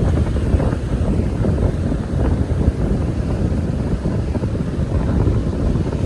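Strong wind buffeting the microphone as a steady, loud low rumble, over the wash of ocean surf.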